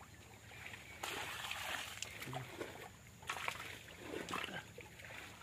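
Faint, irregular splashing and sloshing of muddy water in a shallow, drained irrigation channel, in short bursts about a second in and again around three seconds in, with faint voices in the background.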